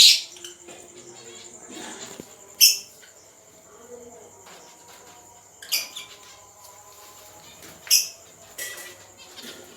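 Caged pet birds chirping: short, shrill calls every two to three seconds, over a faint steady high whine.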